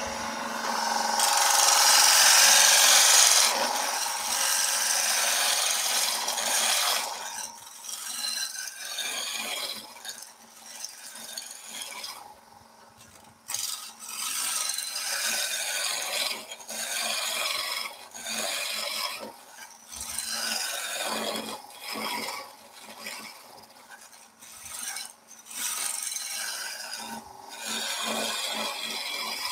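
Turning tool cutting a spinning wooden spindle on a lathe, shavings peeling off in a hissing scrape. The cutting is loudest for the first few seconds, then comes in short passes a second or two long with brief pauses between them.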